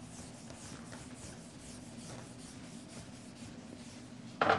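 Chalk scratching on a chalkboard in a run of short, faint strokes as figures are written, over a low steady hum; a brief louder noise near the end.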